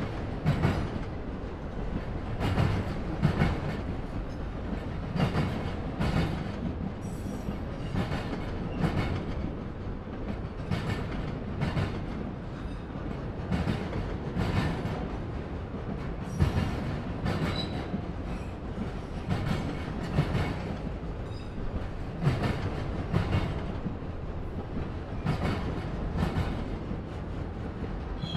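Freight train of autorack cars rolling past, steel wheels clicking over rail joints in a steady, repeating clickety-clack.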